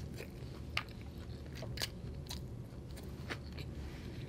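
Close-up chewing of a mouthful of lamb biryani rice, with a few sharp mouth clicks and smacks.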